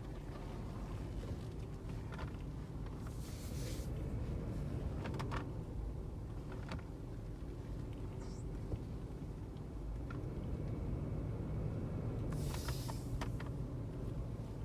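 Steering-wheel clicking on a Lexus GX460 as the wheel is turned left: a few scattered clicks and two brief scraping rubs over the steady low rumble of the idling engine. The clicking comes from a GPS anti-theft unit installed in the steering area, rubbing against the steering as it turns.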